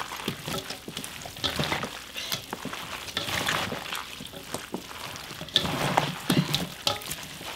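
Gloved hands tossing and squeezing young radish (yeolmu) and eolgari cabbage in wet chili seasoning in a metal bowl: irregular wet squelching and rustling of the leaves.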